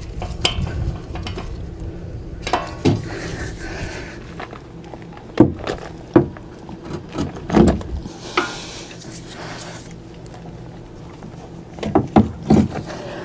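Scattered metallic clinks and knocks as a socket wrench with a long extension is worked onto the hub bolts behind a truck's steering knuckle, with a couple of brief rustles between them.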